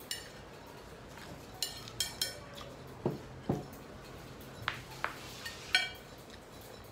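Scattered clinks of crockery and cutlery on a table, several of them short and ringing, with two dull knocks about three seconds in.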